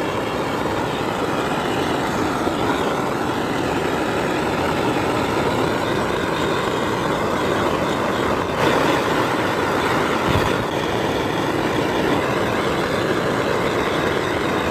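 Gas torch burning with a steady, even hiss while singeing the pin feathers off a plucked duck.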